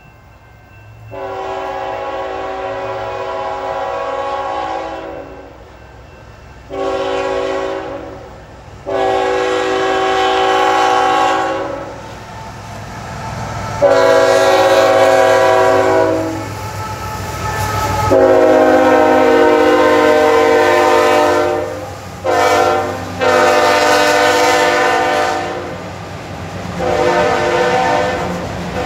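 Multi-chime air horn of a CSX GE freight locomotive sounding about eight long and short blasts as it nears and passes a road crossing, the loudest as the engines go by. Under the horn the diesel engines rumble, and near the end the wheels of the passing autorack cars clatter on the rails.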